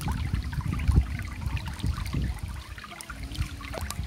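Flowing stream water rushing steadily, with small crackles from a twig fire.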